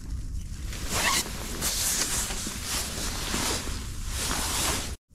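Rustling and rasping of nylon winter clothing close to the microphone, in a series of scratchy strokes over a low rumble, cutting off suddenly near the end.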